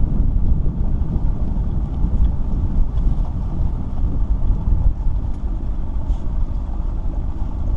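Wind buffeting the microphone: a loud, unsteady low rumble that rises and falls.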